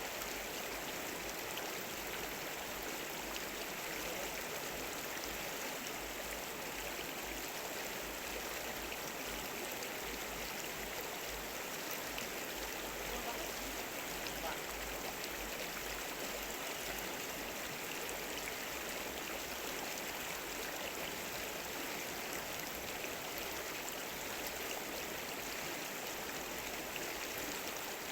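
Stream water flowing steadily, an even rushing with no breaks.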